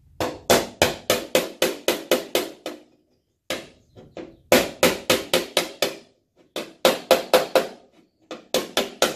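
Body hammer tapping on the steel front fender of a VW Beetle to work out a dent: runs of quick, ringing metallic strikes, about three or four a second, with short pauses between the runs.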